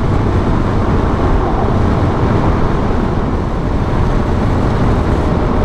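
BMW G 310 GS single-cylinder motorcycle engine running at a steady cruise while riding, under a constant rush of wind and road noise.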